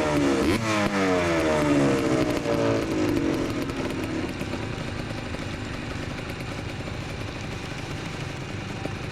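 Big-bore Yamaha Blaster 200 ATV's single-cylinder two-stroke engine on a ride, its note falling steeply in pitch over the first three seconds, then fading to a quieter, steady drone.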